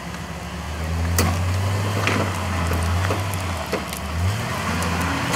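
Chainsaw running under load through the felling cut of a large tree, with several sharp cracks of wood splitting. The saw's note drops away about four seconds in.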